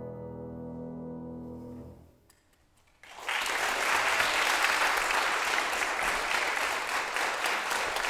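The piano's final chord rings on and fades away, then after about a second of quiet, applause breaks out and carries on steadily.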